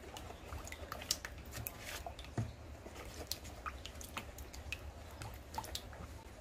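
Silicone spatula stirring a thin mix of milk, egg and sugar in a plastic bowl: faint, irregular small clicks and wet squishes.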